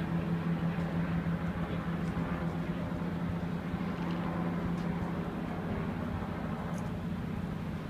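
An idling engine's steady low hum over an even rushing street noise; the hum weakens about six seconds in.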